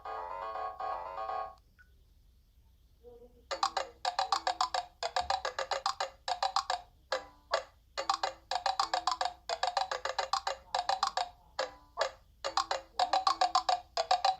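Philips 530 mobile phone ringtones from its Casio-Oki synth chip: one melody ends about a second and a half in, and after a short pause another starts about three and a half seconds in, a fast run of short, clipped synth notes with brief breaks between phrases.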